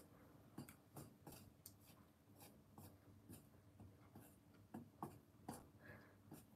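Faint, irregular clicks and light scrapes of wooden chopsticks against a plate as raw marinated chicken pieces are set into potato starch.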